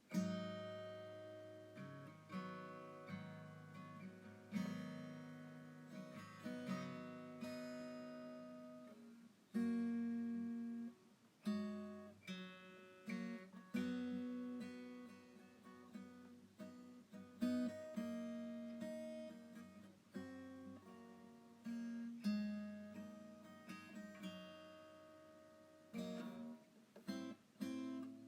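Background music: acoustic guitar played gently, with notes and chords that ring and fade.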